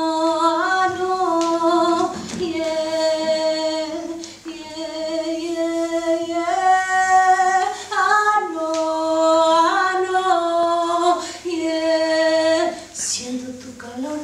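A woman's voice singing solo and unaccompanied, holding long notes that step up and down in short phrases, with a brief breath between phrases.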